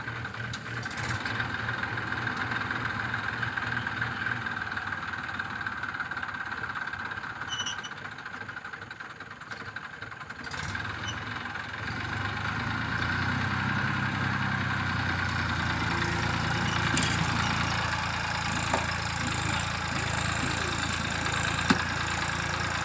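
Tractor diesel engine running steadily; about halfway through its low note grows louder as the tractor is worked hard to climb out of the mud.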